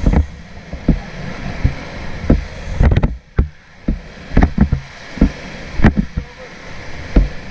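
River water rushing and splashing around an inflatable raft, with a dozen or so irregular sharp splashes and knocks.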